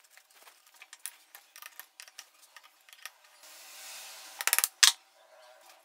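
Light clicks of metal parts being handled on a motorcycle engine, then about three and a half seconds in a short hiss, followed by a quick metallic rattle and one sharp click.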